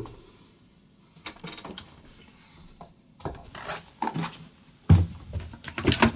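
A sharp clunk, then scattered knocks and clatter, a heavy thump about five seconds in, and the latch and handle of a wooden front door being worked as it is opened near the end.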